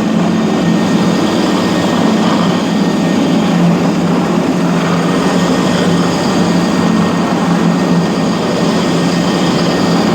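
DFG500 twin-headed three-phase floor grinder running with diamond button plates on old concrete: a steady electric-motor drone under a dense, even grinding hiss.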